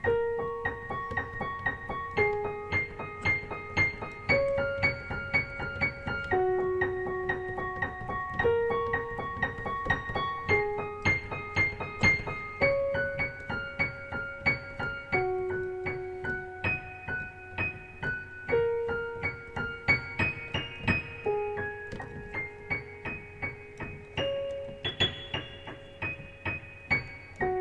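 Background piano music: a quick, repeating pattern of notes over a lower note that changes about every two seconds.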